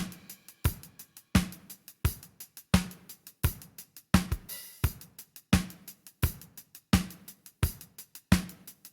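Drum kit beat: kick and snare alternating about every 0.7 seconds, with hi-hat ticks between, played as demo material for an equaliser plugin.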